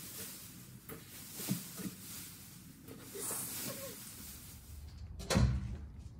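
Thin plastic drop sheeting rustling and crinkling as it is hung and pressed onto painter's tape along a bus ceiling rail, with a few small handling clicks. Just past five seconds in comes a single loud thump.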